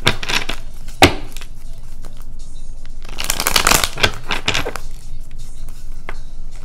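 A deck of tarot cards being shuffled by hand: papery rustling in bursts, with one sharp snap about a second in.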